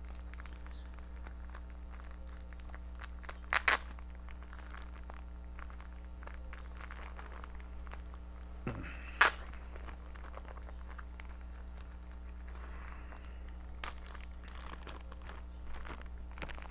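Clear plastic tobacco pouch crinkling and rustling as it is opened by hand, with a few louder sharp crackles.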